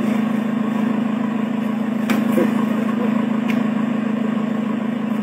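A steady low mechanical hum, like an engine idling, with a couple of faint clicks.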